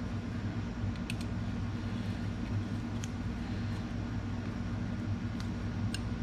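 Steady low mechanical hum with a few faint, light clicks as a hex key works the brake-pad retaining pin bolt on a motorcycle front brake caliper.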